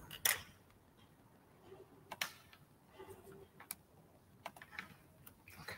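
About half a dozen faint, scattered clicks from working a computer mouse and keyboard, over quiet room tone.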